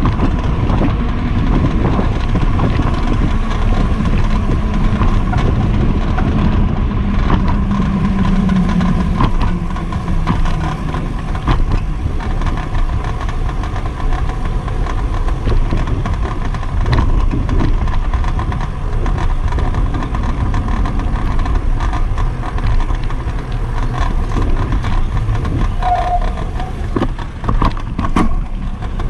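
Wind rumbling on the microphone of a camera mounted on a moving bicycle, with car traffic running nearby.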